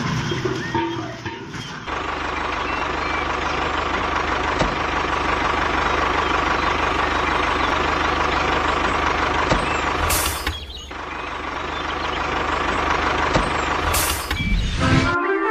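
A machine running steadily with a low hum, broken by two short sharp hisses about ten and fourteen seconds in; it cuts off just before the end.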